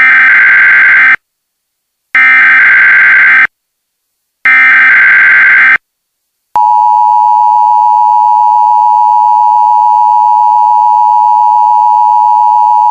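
Emergency Alert System activation: three bursts of SAME header data, a harsh digital screech each a little over a second long with short gaps between. About six and a half seconds in, the steady EAS attention tone starts and holds.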